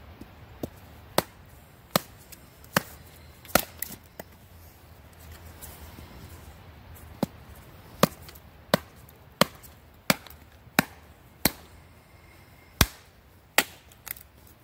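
Dewalt 20 oz camper's axe, its blade stuck in the end of a log of softer wood, knocked down repeatedly onto a wooden chopping stump to split the log. Sharp wooden knocks come about one every three-quarters of a second. There is a pause of a few seconds in the middle, and the loudest knock comes near the end.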